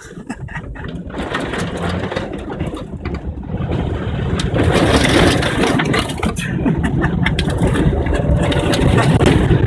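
Car engine running as the car ploughs through muddy water, heard from inside the cabin, with water rushing and splashing against the body and spray hitting the windshield. The splashing grows louder about four seconds in as the spray washes over the glass.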